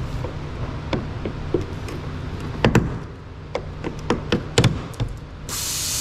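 Irregular clicks and knocks of tools and parts being handled while loosening fender fasteners and trim on a car. A few sharper knocks fall near the middle. About five seconds in, a steady hiss starts.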